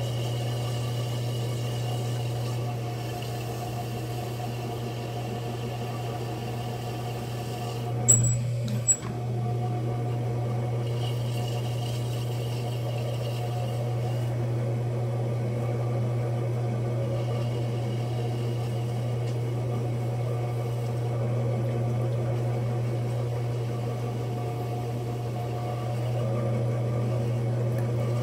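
Electric pottery wheel's motor humming steadily as the wheel head spins with wet clay being centered on it. Two short, sharp knocks come about eight and nine seconds in.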